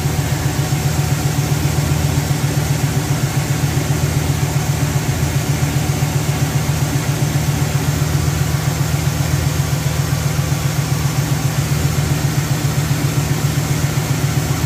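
Chevrolet small-block V8 idling steadily with an even, rhythmic pulse. The newly fitted electric radiator fans run alongside, switched on by their temperature sensor at about 182 °F as the engine warms.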